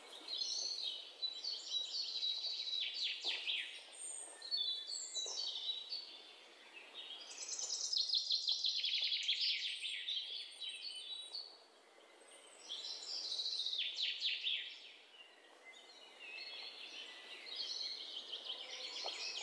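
Small birds chirping and trilling in repeated phrases of a few seconds each, several calls overlapping, with short quieter gaps between phrases.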